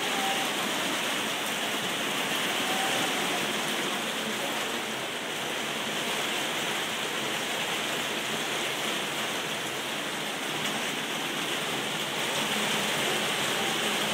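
Rain falling steadily, an even hiss that holds at the same level throughout.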